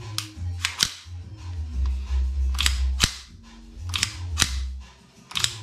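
Sharp metallic clicks from the slide and hammer of a custom Hi-Capa 2011 gas blowback airsoft pistol as it is racked and cycled by hand after oiling. There are about seven clicks, some in close pairs, over background music.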